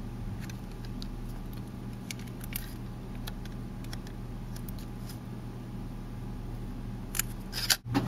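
Thin plastic protective sheet being handled and pressed onto an SSD: faint scattered crinkles and clicks, with a few sharper ones near the end, over a steady low hum.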